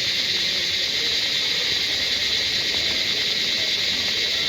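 Steady high-pitched chirring of an insect chorus, unbroken throughout, over a faint murmur of distant voices.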